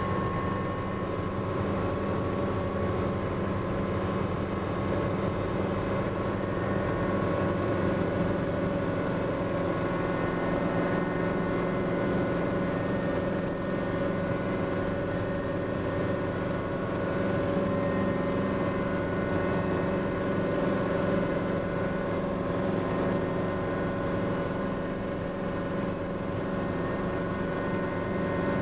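Schweizer 300 light helicopter running steadily, heard from inside the cockpit: a constant drone of its piston engine and rotor, holding several steady tones with no change in pitch or level.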